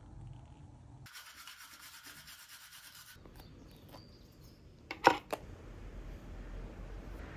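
A plastic jar of facial pads being handled and its screw lid twisted open: a scraping rub for about two seconds, then scattered light clicks and a couple of sharp plastic clacks about five seconds in, the loudest sounds.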